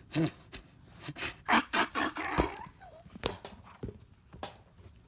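A dog making short sounds while it handles a new toy ball, with a few sharp clicks and taps in the second half.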